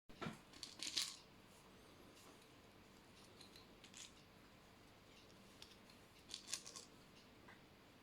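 Faint small clicks and light rattles as a 3D-printed capper is handled and percussion caps are pressed on. A cluster in the first second, a single click about four seconds in, and another cluster about six and a half seconds in.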